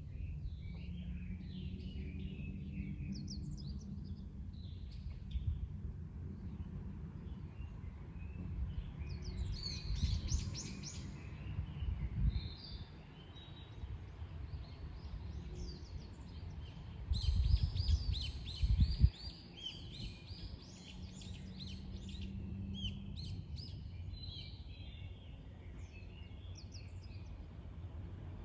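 Wild birds singing and chirping in short phrases, with livelier bursts of rapid twittering about ten seconds in and again from about seventeen to twenty-one seconds, over a low steady rumble that swells in a few gusts.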